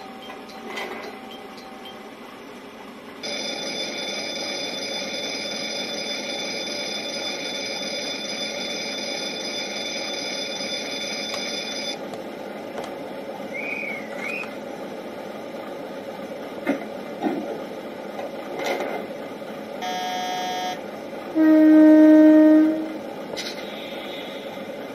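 Model railway sound units playing station and train sounds through a small speaker: an electric station departure bell rings steadily for about nine seconds. Later a diesel railcar horn gives a short toot and then a longer, louder, lower blast, over a steady low hum.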